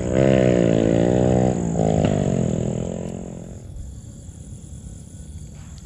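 A person's voice held in long, wordless tones that waver in pitch, breaking once and then fading out about three and a half seconds in.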